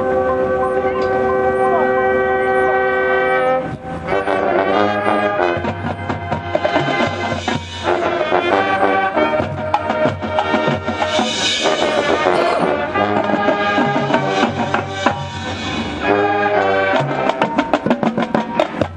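High school marching band playing: brass hold a loud chord for the first few seconds, then the full band moves into a busier passage of brass over drums, which ends in a run of sharp, evenly spaced drum strokes near the end.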